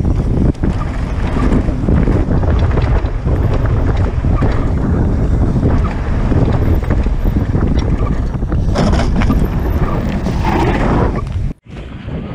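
Wind buffeting a helmet camera's microphone, with the rumble and rattle of a mountain bike's tyres and frame on a rough dirt trail during a fast descent. The noise cuts out suddenly for a moment near the end, then starts again.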